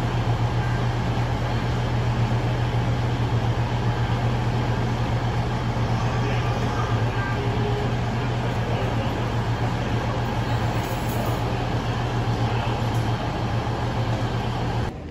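Steady ambience of an airport train platform: a constant low hum under an even wash of noise from travellers walking and wheeling suitcases.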